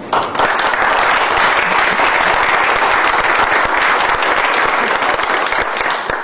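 Audience applauding: dense, steady clapping that starts at once and dies away just before the end.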